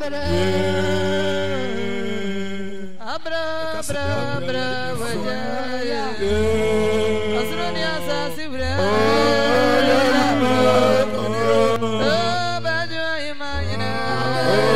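Music: singing voices over long held low bass notes that change every two to three seconds.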